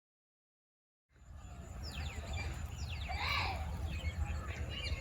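Silence for about a second, then outdoor ambience: small birds chirping in short, quick downward-sweeping notes over a low steady rumble, with one louder call a little past the middle.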